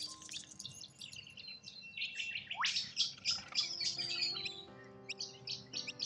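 Wild birds chirping and twittering in quick, high-pitched notes, densest in the middle, with one loud upward-sweeping call about two and a half seconds in. Soft background music with held chords runs underneath.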